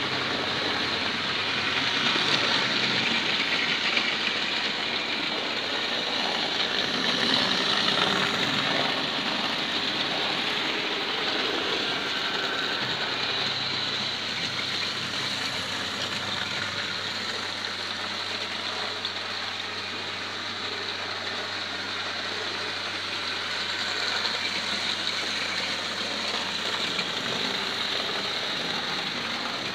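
Electric model trains running around the layout's track: a steady whir of small motors and wheels on rail.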